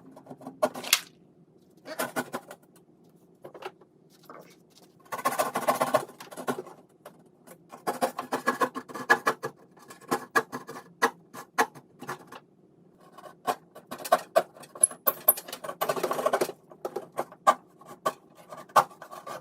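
Hand drywall saw (jab saw) cutting through gypsum drywall in short, irregular rasping strokes, with sharp clicks and ticks in between.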